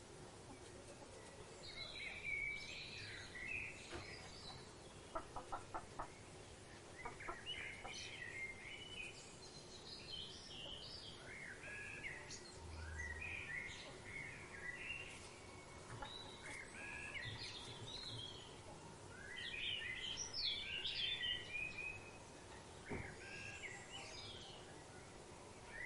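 Birds of paradise calling again and again in short, chattering phrases, with a quick run of about five clicks a few seconds in.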